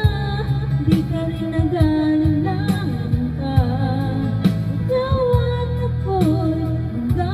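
A woman singing a Tagalog ballad into a handheld karaoke microphone over a backing track.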